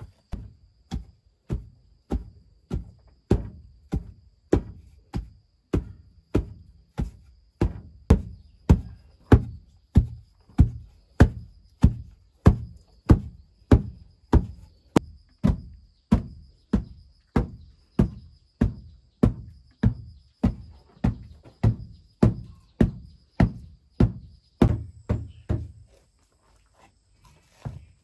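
Dull, heavy blows struck over and over in a steady rhythm, about three every two seconds, like a tool pounding a solid mass, stopping a couple of seconds before the end. A faint steady high whine runs underneath.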